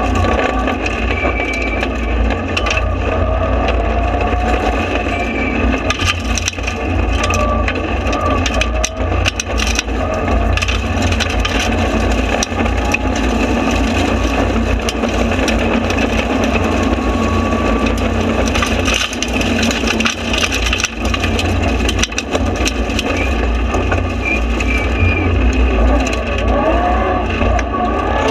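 Mitsubishi Lancer Evolution rally car at stage speed, heard from inside the cabin. Its turbocharged four-cylinder engine revs up repeatedly through the gears over a dense, constant clatter of knocks and rattles from the road surface and the car.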